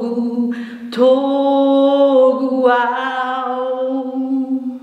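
A woman singing a Batak hymn solo, holding long, slightly wavering notes, with a short breath about a second in before a note held for over three seconds.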